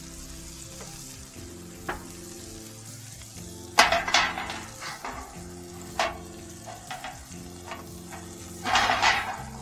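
Metal sheet pan clattering down over a cast-iron griddle on a charcoal kettle grill about four seconds in, then knocking and clanking as it is shifted into place, with a second loud clatter near the end. Smash burgers sizzle on the griddle underneath.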